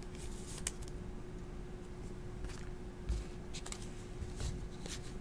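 Glossy trading cards handled and flipped through by hand: faint scattered ticks and slides as cards slip off the stack, over a faint steady hum.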